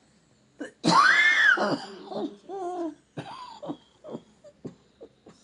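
A run of coughs. The loudest, about a second in, is drawn out, and its high voice rises and falls. It is followed by a wavering, laugh-like wheeze and several short, separate coughs.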